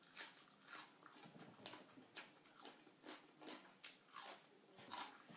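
Faint chewing and mouth smacks of a person eating raw shrimp salad, short irregular clicks a few times a second.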